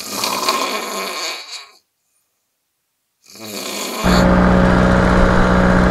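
A man snoring loudly, twice: one long snore, a silent pause, then a shorter one. About four seconds in, a paramotor engine's steady drone cuts in.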